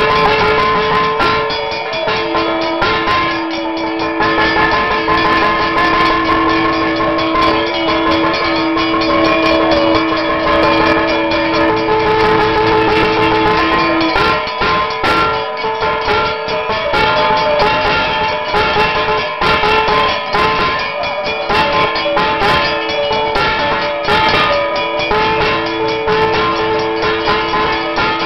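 Temple ritual music at a serpent-shrine abhishekam: long held notes over drumming, with a brass hand bell ringing.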